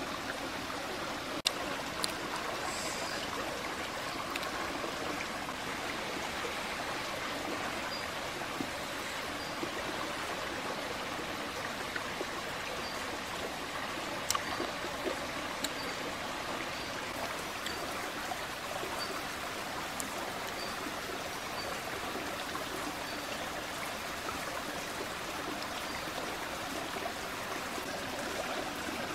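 Shallow stream running over rocks: a steady rush of water, with a few sharp clicks and a faint high note that repeats about once a second through the middle stretch.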